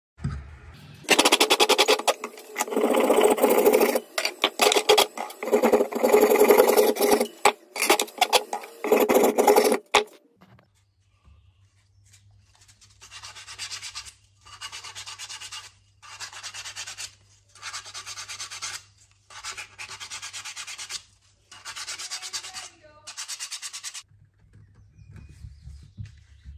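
Abrasive held against a turned ash stool leg spinning on a wood lathe, loud rough rasping in close bursts for about ten seconds. Then a turned ash leg is rubbed down by hand with abrasive in seven even strokes about a second long, over a faint steady hum.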